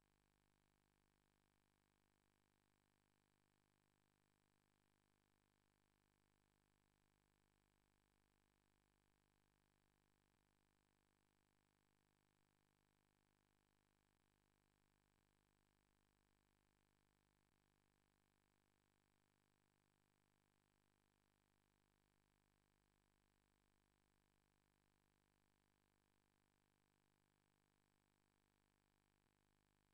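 Near silence: no sound beyond faint, steady electrical hiss.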